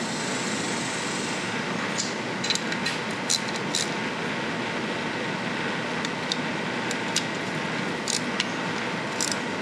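Scattered light metal clicks and taps of a hand tool turning the valve cover bolts on a small engine, over a steady whirring background noise.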